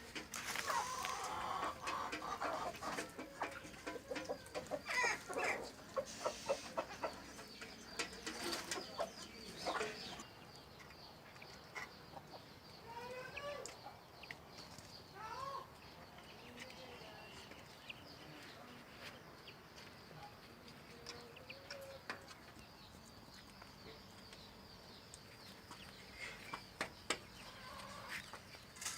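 Domestic chickens clucking. For about the first ten seconds it is busier and louder, with scattered sharp knocks and clicks; after that come quieter, short rising-and-falling clucks.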